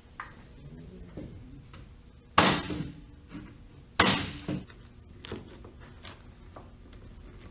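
Electric staple gun firing twice, about a second and a half apart, driving staples through canvas into a wooden stretcher bar. A few lighter clicks of handling follow.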